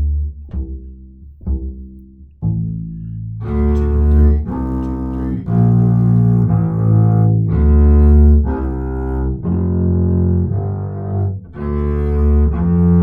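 Double bass playing the bass line of a string orchestra piece slowly. It opens with a few short plucked pizzicato notes, then changes to the bow about two and a half seconds in, for a run of held bowed notes.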